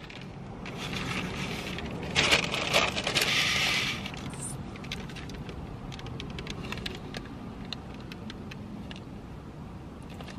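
Handling noises: a rustle lasting about two seconds, then scattered light clicks and taps, over a low steady hum.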